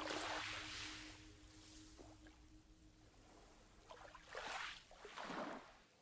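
Faint swishes of water in soft swells. There is a longer swell at the start and two short ones near the end.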